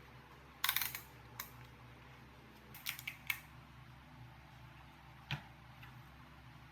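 Workshop handling noises: a short scrape about half a second in, then several sharp clicks and knocks, over a faint steady low hum.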